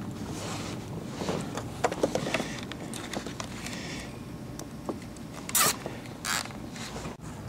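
Hands handling wires against corrugated plastic wire loom along a car's door sill: scattered clicks, creaks and rustling, with two short rasping scrapes a little over a second apart near the end.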